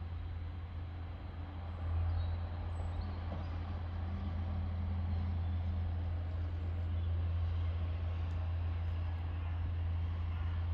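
A vehicle engine running with a steady low hum that gets louder about two seconds in and then holds.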